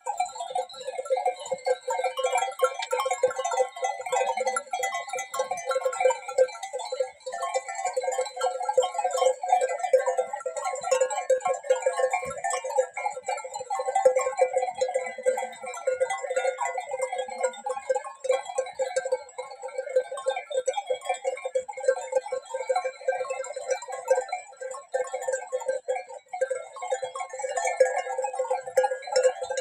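A large flock of sheep grazing on pasture, a busy, continuous sound of the flock with no pause.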